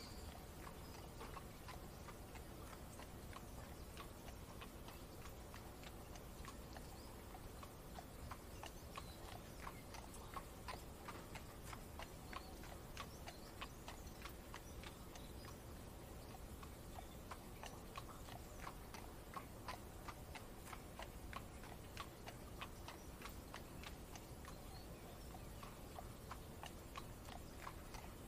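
Faint horse-and-carriage ambience: irregular clip-clop of horse hooves, a few knocks a second, over a steady low rumble.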